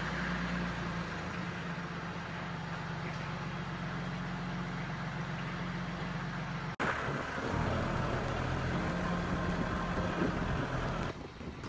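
Compact farm tractor's engine running steadily as it moves with a load on its pallet forks. The sound drops out for an instant about seven seconds in, then carries on.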